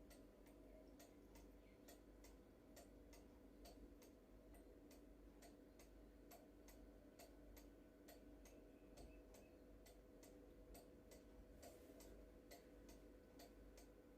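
Cuckoo clock movement ticking faintly and evenly, about two ticks a second, as its pendulum swings: the restored clock is running.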